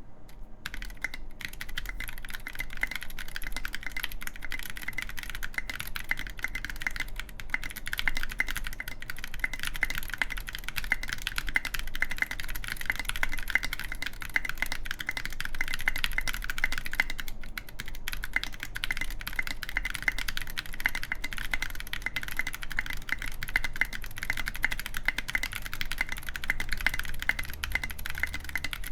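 Continuous fast typing on a gok 7V mechanical keyboard with lubed Zealios v2 tactile switches in a full aluminium plate and SA-profile keycaps: a dense, steady stream of keystroke clacks.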